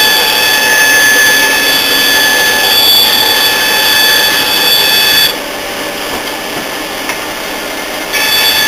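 Bandsaw with its dust extraction running, a steady machine whine, while a thin sheet is fed through the blade. About halfway through the sound drops and the high whine fades out, then it returns shortly before the end.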